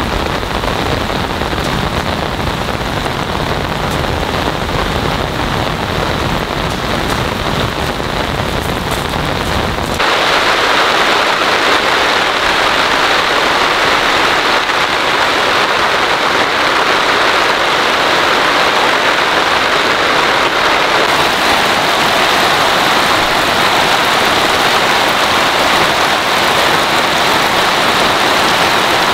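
Heavy rain pouring down in a dense, steady hiss. About ten seconds in it changes abruptly, losing its low rumble and becoming brighter and louder in the middle range.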